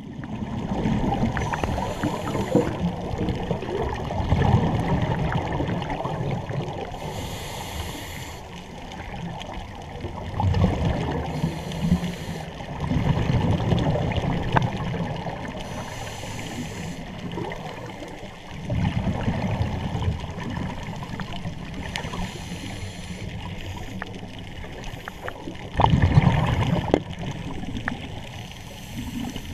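Scuba breathing heard underwater: a hiss from the regulator on each inhale and a loud low burst of exhaled bubbles, repeating in a slow breathing cycle every five or six seconds.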